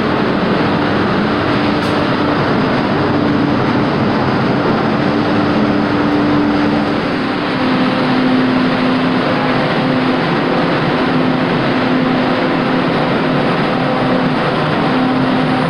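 MBTA Green Line light-rail train moving past close by: a steady rumble of wheels on rail with a low hum from the drive, which steps down slightly in pitch about halfway through.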